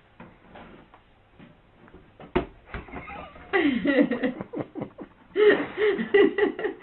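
A sharp click a little over two seconds in, then a person laughing in two spells of short repeated bursts.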